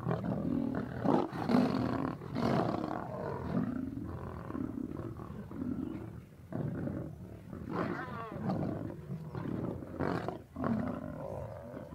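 Lions growling and snarling at one another while they feed together on a kill, in a string of short harsh bursts one after another.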